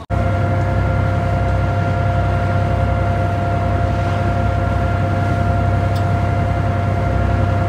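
Steady low drone of a large ship's engines, with a few constant higher hums over the rumble.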